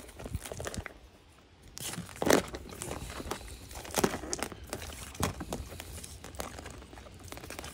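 Fishing tackle handled close up while re-rigging a catfish line: irregular small clicks and rustling as line is trimmed and the rig parts are worked by hand.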